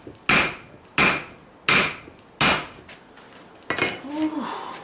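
Hand hammer striking hot steel on an anvil, four sharp blows about 0.7 s apart, then a lighter knock near the end. The smith is upsetting the sides of the piece back and straightening it as he works.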